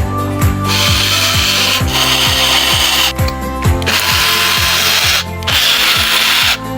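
Background music with a steady thumping beat, with four bursts of a hissing whir over it, each about a second long.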